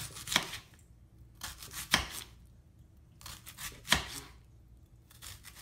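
Kitchen knife slicing an onion into rounds on a plastic cutting board: a few separate sharp cuts a second or two apart, the blade knocking on the board, the loudest about four seconds in.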